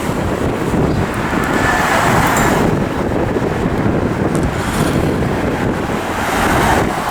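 City street traffic noise: cars running past in a steady wash that swells twice.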